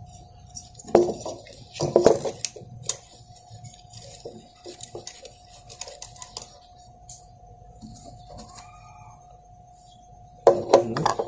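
Clicks and knocks of hands handling a MIG welder's wire feeder and wire spool as the welding wire is threaded in. There are louder knocks about a second in, again about two seconds in, and a cluster near the end, over a faint steady hum.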